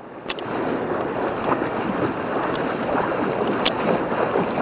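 Shallow river water splashing and rushing steadily as someone wades through the current, with two sharp clicks, one near the start and one about three and a half seconds in.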